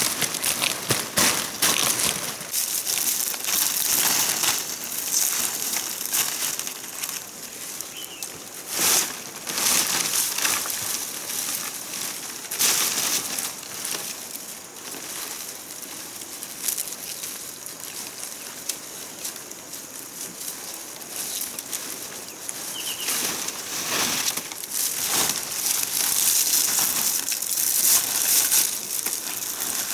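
Irregular rustling and crackling with many small clicks and knocks over a steady high hiss, a few sharper knocks standing out.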